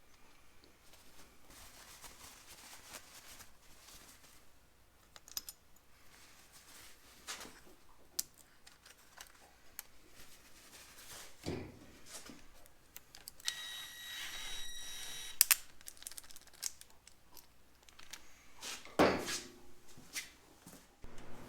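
Scattered clicks, clinks and knocks of hand tools and metal engine parts being handled, with a brief high squeak about two-thirds of the way through.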